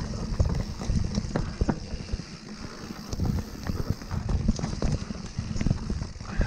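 Mountain bike riding fast down a rocky dirt singletrack: tyres rumbling over the ground and the bike knocking and rattling over rocks and roots, with wind noise on the microphone. The ride goes briefly smoother about two seconds in.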